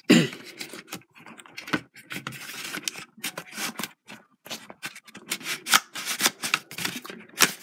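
Plastic Blu-ray case and cardboard slipcover being handled: an irregular run of sharp clicks, taps and scrapes, with the loudest clicks at the very start and near the end.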